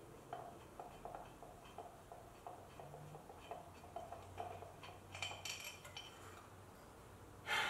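Faint, steady clicking of a ratchet wrench, about two or three clicks a second, as a hard-to-reach bolt on a 2JZ twin-turbo engine is worked loose. Brighter metal clinks follow, and a louder knock comes near the end.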